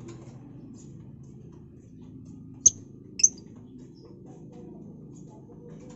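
Two short, sharp high chirps from a caged lovebird, about half a second apart, a little under three seconds in, over a low steady hum.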